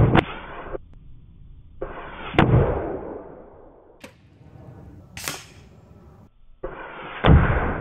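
Pre-charged pneumatic air rifle firing several shots, each a sharp crack, roughly two to five seconds apart. Pellets hit the targets, and one knocks over a soda can.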